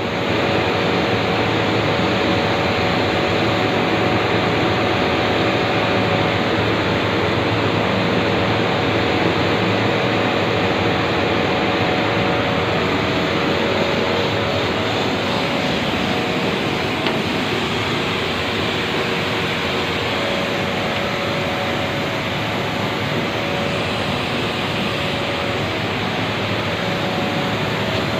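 Compressed air jetting from a blow gun through a dirty refrigeration condenser coil, a loud steady hiss as it blasts dust out of the fins. A faint steady hum of machinery runs underneath.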